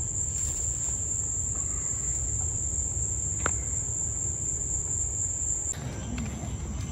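Insects trilling in one steady, high-pitched, unbroken note, over a low rumble, with a single short click about halfway through.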